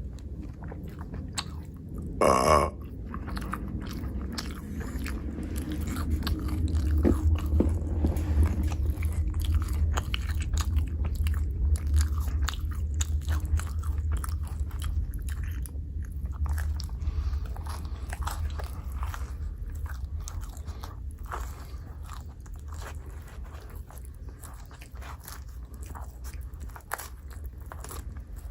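Close-miked biting and chewing of pizza: many small crunches over a low rumble. A short, loud pitched sound comes about two seconds in.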